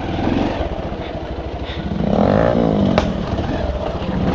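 Motorcycle engine running under way, its pitch rising and then falling about two seconds in as the rider opens and eases the throttle. A single sharp click about three seconds in.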